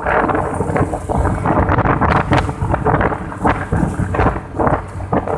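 Wind buffeting the microphone of a moving Yamaha Mio Sporty scooter, a loud uneven rushing that gusts up and down, with the scooter's engine humming steadily underneath.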